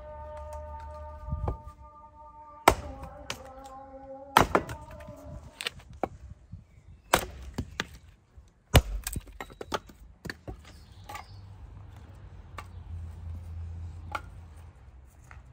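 Chopping: four hard blows spread irregularly through the first nine seconds, among many lighter knocks and taps.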